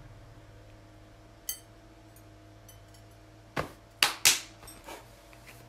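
Glazed pottery and kiln furniture handled while loading a kiln for a glaze firing: a single light, ringing ceramic clink about a second and a half in, then a quick run of sharp knocks and clatters a little past halfway, over a steady low hum.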